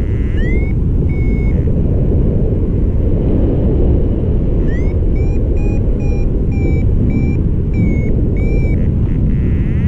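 Steady wind rumble on the microphone in flight, with a paragliding variometer beeping over it. Two beeps come in the first second and a half; after a pause of about three seconds the beeps return at about two a second. The vario's climb tone signals that the glider is rising in lift.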